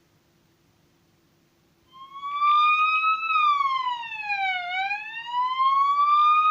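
Recorded police siren sound effect played back by a diorama sound-effect device. After about two seconds of a faint hum, the siren starts with a slow wail that rises, falls and rises again.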